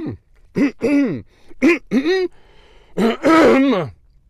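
A man clearing his throat and hacking in a run of short, strained bursts, the longest and loudest near the end, trying to shift a piece of chewy bacon stuck in his throat.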